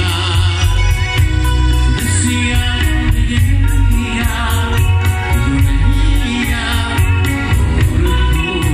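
Grupero band playing live: a male voice singing over bass, drums and percussion with a steady beat.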